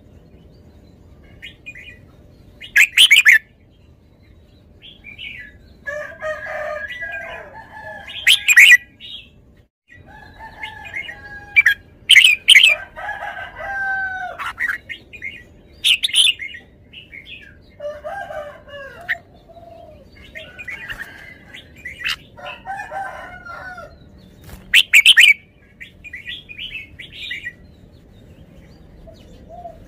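Red-whiskered bulbul singing: short warbled phrases every few seconds, with loud sharp notes among them and quiet gaps between.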